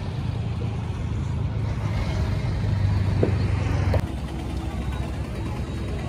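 A low, steady rumble of vehicle and road noise, which changes at a cut about four seconds in to road traffic with vehicle engines.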